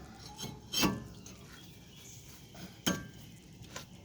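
Metal clinks and knocks of a brake rotor being fitted back onto the wheel hub of a 1999 Dodge Ram 1500: two sharp clinks, the louder just under a second in, the other about three seconds in.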